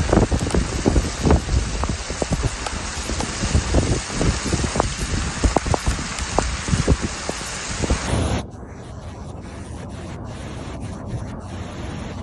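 Heavy rain and rushing floodwater with wind buffeting the microphone, full of sharp knocks and low rumble. It cuts off abruptly about eight seconds in, leaving a much quieter steady hiss.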